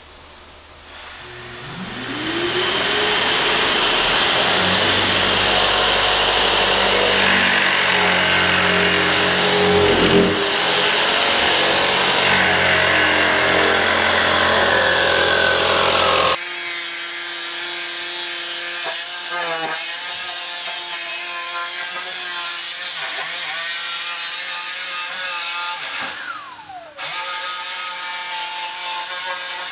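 A corded power tool working the scribed edge of a wooden mantle base. Its motor spins up about a second in and runs steadily under load. Partway through the tone changes suddenly to a steadier whine that sags briefly a few times as it bites, and dips once near the end.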